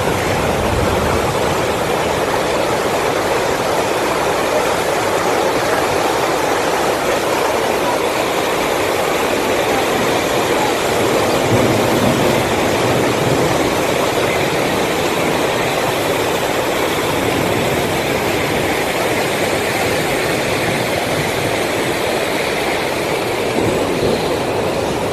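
Muddy floodwater rushing across a road and pouring down the rocky slope above it, a loud, steady rush.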